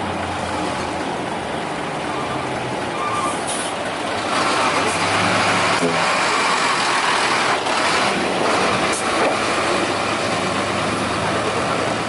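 Diesel engines of loaded FAW 6x4 logging trucks running as the trucks drive past close by, with a steady hum under road noise that grows louder from about four seconds in. A few short knocks sound over it.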